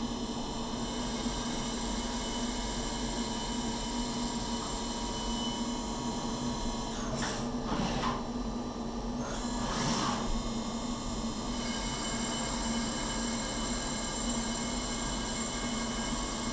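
CNC machine tool running an automated machining cycle on a turbine blade: a steady hum with several thin high whining tones from the spindle and axis drives, broken by short hissing rushes about seven, eight and ten seconds in.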